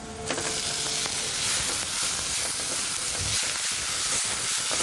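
Chopped vegetables (carrot, beans, cauliflower) tipped into hot oil in a non-stick kadai, sizzling suddenly about a quarter second in and frying steadily as they are stirred with a wooden spatula, their water cooking off.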